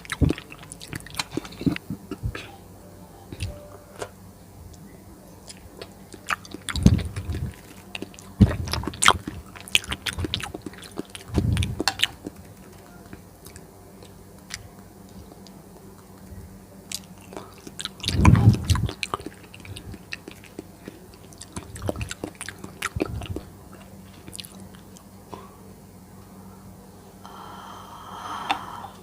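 A person chewing and biting jelly, close to the microphone: wet mouth sounds and small clicks, with several louder bites spread through.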